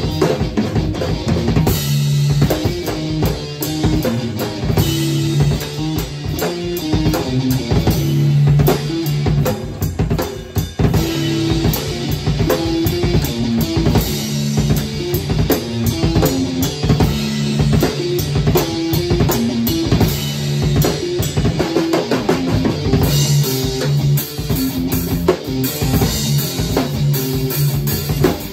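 Live drum kit and amplified electric guitar jamming together: a busy beat of bass drum, snare and cymbals under sustained guitar notes.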